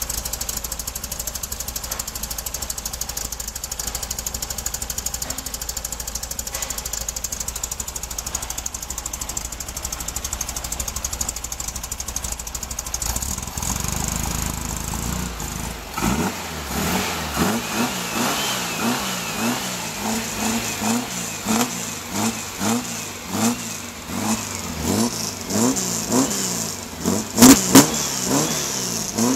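Air-cooled flat-four engine of a Porsche 356-style Speedster running through a HiPerformance A1 sport exhaust. It idles steadily for about the first half, then the throttle is blipped again and again, about once a second, each rev rising and falling back. Two sharp bangs stand out near the end.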